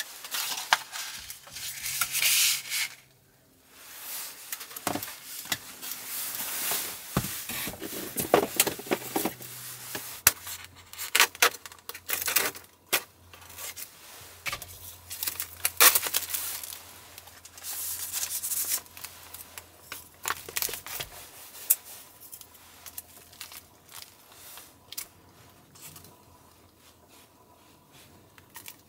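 Food packaging being unwrapped: plastic wrap peeled and torn off a tray of sliced meat, with paper sheets rustling and crinkling, in an uneven run of rips and crackles. It dies down to a few light taps and rustles in the last several seconds.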